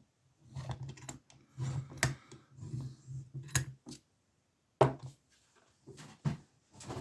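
Irregular small metal clicks and taps from a small padlock and lockpicking tools being handled, with a few louder knocks about two, three and a half and five seconds in.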